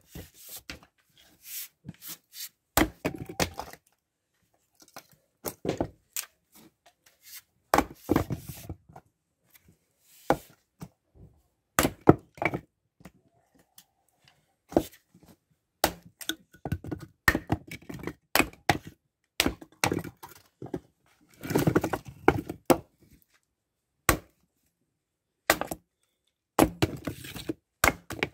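Fiskars X17 splitting axe splitting dry firewood on a chopping block: repeated sharp axe blows into the wood, with the wood cracking apart and split pieces knocking against each other as they are thrown aside.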